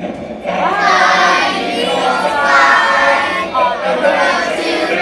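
A group of children singing together in chorus, coming in loudly about half a second in.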